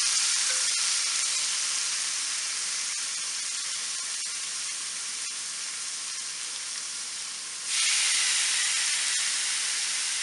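Marinated chicken breast sizzling on a hot, oiled cast-iron grill pan, a steady sizzle that slowly eases off, with a few faint pops. Late on, a second breast goes onto the pan and the sizzle suddenly gets louder.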